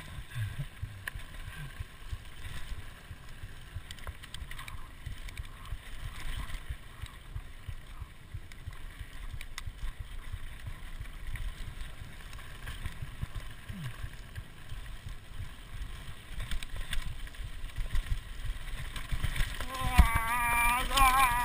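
Mountain bike rolling fast over a dry dirt singletrack: a steady low rumble of tyres and wind buffeting the camera microphone, with scattered rattles and clicks from the bike. Near the end comes a hard jolt and a wavering high squeal lasting about a second and a half.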